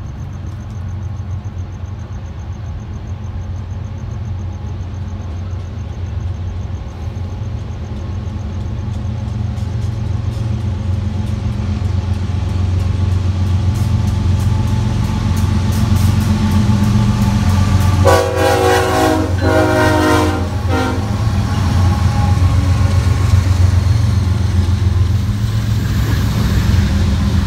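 An approaching diesel locomotive, its engine rumble growing steadily louder, sounds a multi-note horn for about two and a half seconds near the two-thirds mark.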